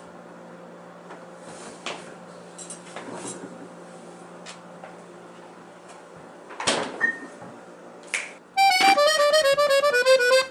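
Quiet room tone with a steady low hum and a few soft knocks. About two thirds through, music starts: a bright, quick stepped melody on a reedy instrument.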